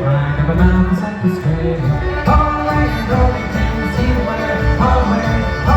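A band playing country-style music, with a pulsing bass line under the melody.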